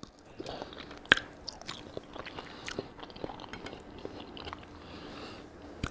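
A person chewing food close to the microphone: scattered small wet mouth clicks, with one sharper click about a second in.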